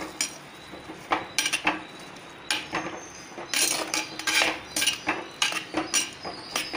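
Steel ladle scraping and knocking against a clay pot while diced potatoes and brinjal are stirred into the masala, in short irregular strokes about two a second.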